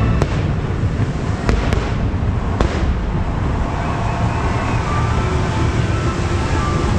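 Fireworks going off: four sharp bangs in the first three seconds over a steady low rumble.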